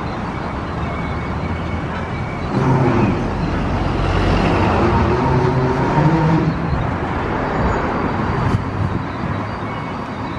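Steady engine rumble that grows louder about two and a half seconds in, with a low hum that wavers in pitch, and eases back off a few seconds before the end.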